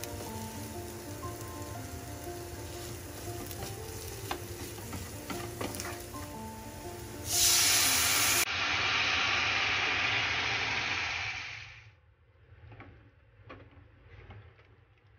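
Background music over the stirring of sautéed vegetables. About seven seconds in, chicken broth poured into the hot frying pan sets off a loud sizzle that dies away after about four seconds. Soft scrapes of a spatula stirring follow.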